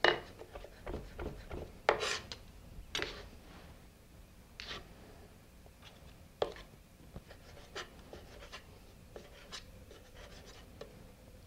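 Chef's knife dicing raw tuna on a cutting board: quick knocks of the blade on the board over the first few seconds, then scattered single knocks and light scraping as more tuna is cut.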